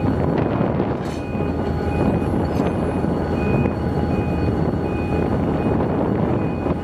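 Diesel locomotive engine running steadily at idle, with a short, high electronic beep repeating about every three-quarters of a second. A single click sounds about a second in.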